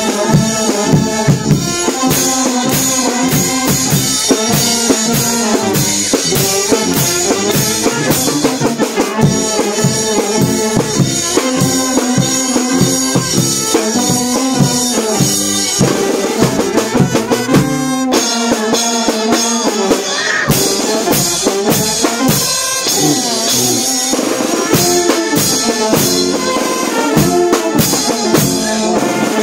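Live brass band playing, with trumpets, saxophones and a sousaphone over a drum kit keeping a steady beat with cymbal hits, heard close to the drums.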